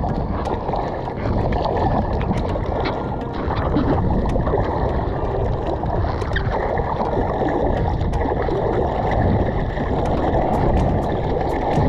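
Seawater sloshing and splashing along a surfboard as the surfer paddles it through small swell, close to the board, with scattered small splashes and drips.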